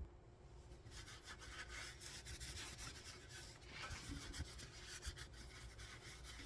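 Faint rubbing of a cloth rag wiping the motorcycle's engine and exhaust pipes clean, in short scratchy strokes starting about a second in.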